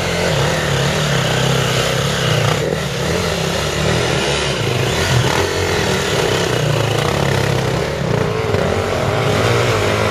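KTM enduro dirt bike's engine running through a muddy rut, its revs wavering up and down a little as the bike is worked up the slope.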